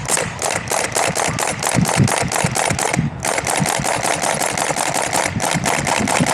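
VFC UMP45 airsoft gun firing on full auto: two long bursts of rapid, even shots, the first stopping a little before three seconds in and the second starting a moment later.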